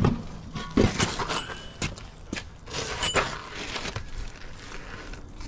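A heavy Dayton-style truck wheel and tyre being worked off its rusty hub by hand: metal clunking and scraping as the rim shifts and slides free, with a few knocks and footsteps. The loudest clunk comes right at the start.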